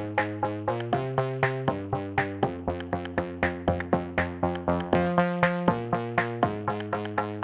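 Background music: an electronic track with synthesizer chords and a steady drum-machine beat, about three to four beats a second.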